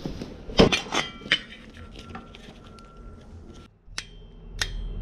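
Sharp metallic clinks and clatters of tools and small metal parts being handled in a workshop, a quick cluster about a second in and two more single clinks near the end.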